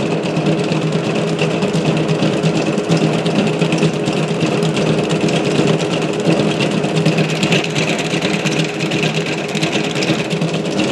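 Large commercial planetary mixer running steadily, its motor humming and its beater churning batter in a big steel bowl.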